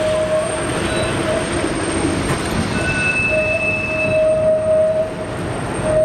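Open-top heritage tram running along street track: steady rolling noise with a strong, steady whine that drops out for a few seconds and comes back near the end.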